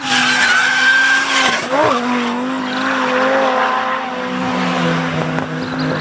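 Race car engine running at high revs, with tyres squealing as the car drifts. The engine pitch dips briefly and picks up again about two seconds in.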